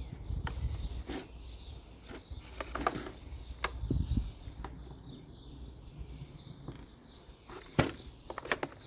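Scattered light clicks and knocks of hand work on a small two-stroke engine being reassembled, over a low background rumble, with a few sharper clicks near the end.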